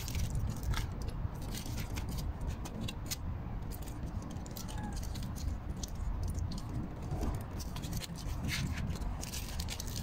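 Sandwich wrappers crinkling in short, scattered rustles as hotdog sandwiches are unwrapped and handled, over a steady low rumble.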